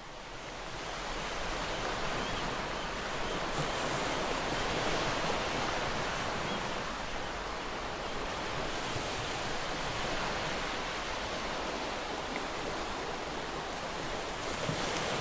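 Ocean surf: a continuous rush of waves washing in, fading in at the start and then swelling and easing gently.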